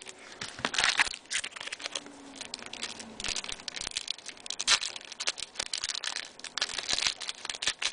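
Trading card pack wrapper being torn open and crinkled, with irregular crackling rustles and the cards being handled.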